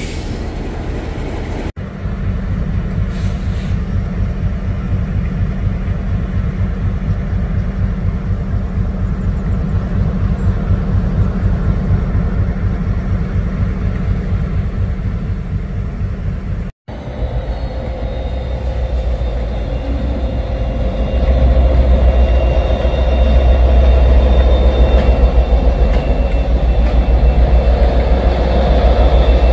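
Diesel locomotive engines, heard in three cuts. First, briefly, a Class 60's Mirrlees engine idling. Then a Class 56's Ruston-Paxman V16 idling with an even, fast low throb. Then a Class 57's EMD engine under power as the locomotive pulls away, with a steady whining tone, growing louder about twenty seconds in.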